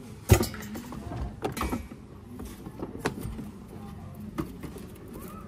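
Items being moved about in an open car boot: a sharp knock just after the start, then scattered lighter knocks and clatter.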